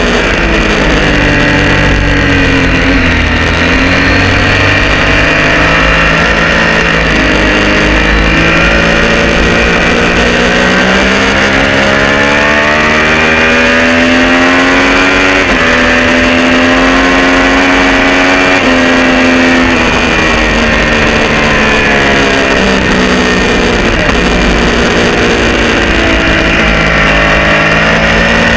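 Triumph Street Triple R 675 three-cylinder engine through an unbaffled Arrow exhaust, run hard at high revs: the pitch climbs under acceleration and falls as the throttle is eased for the corners, with a few abrupt pitch steps at the quickshifter gear changes. A steady rush of wind runs underneath.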